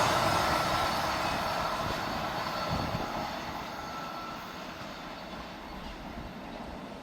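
A train that has just passed recedes, its running noise dying away steadily.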